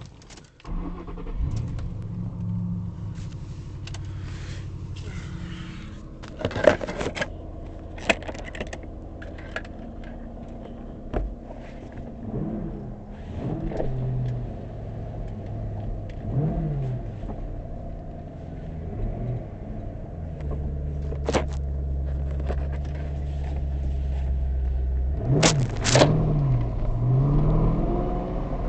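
2005 Ford Mustang GT's V8 engine running, with several short climbs and drops in pitch as it revs, a louder steady stretch in the middle, and a few sharp clicks and rattles. The owner is trying to catch an odd noise that comes when accelerating past 2,500 rpm after the car has sat, which he suspects is in the drivetrain.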